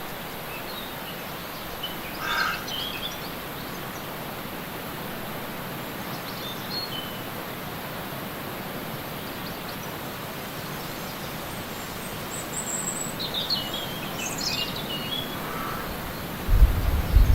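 Steady rush of a waterfall, with small birds chirping in short high phrases about two seconds in, around six seconds, and again from about twelve to fifteen seconds. Just before the end a loud low buffeting starts.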